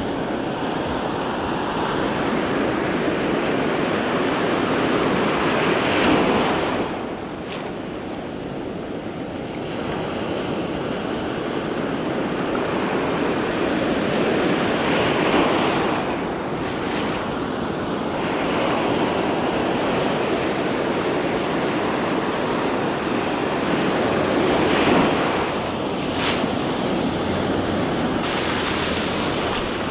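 Surf breaking and washing up the beach, the rush of the waves swelling and easing every few seconds, with wind buffeting the microphone.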